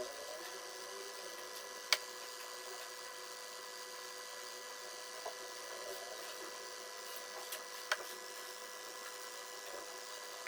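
A steady electrical hum with two sharp clicks, about six seconds apart.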